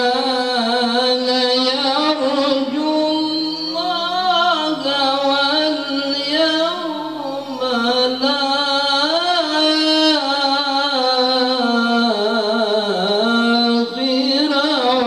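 A male qari recites the Quran through a microphone in a high, melismatic voice. Long held notes alternate with wavering ornamented runs that climb and fall in pitch.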